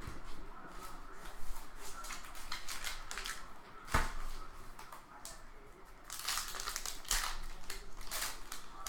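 Packs of baseball cards being torn open and their wrappers crinkled, with a sharp knock about four seconds in and denser crinkling near the end.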